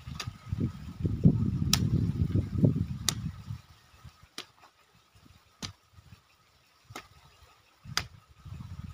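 A long-handled hoe chopping into and scraping through dry, loose soil. There are dull, irregular thuds for the first few seconds, quieter in the middle, and more near the end, with sharp clicks about every second and a bit.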